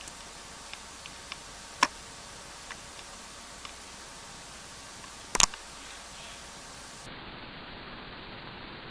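Light clicks and taps of hands working paracord while weaving, over a steady hiss; one sharper click about two seconds in and a louder double click about five and a half seconds in.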